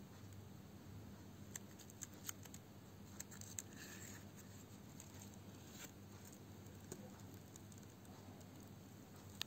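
Near silence over a faint steady low hum, broken by faint dry crinkles and clicks of a papyrus scroll being handled and unrolled, clustered about one and a half to four seconds in, with single ticks later.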